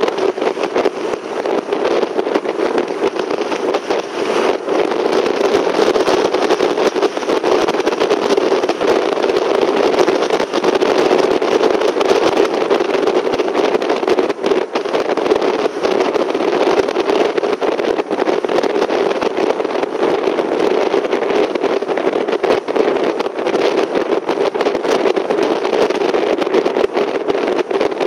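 A car driving steadily along a road: continuous road and engine noise with a fine crackle running through it.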